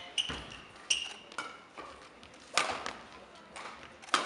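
Badminton rally: several sharp racket-on-shuttlecock hits at irregular spacing, with short high squeaks of shoes on the court floor between them.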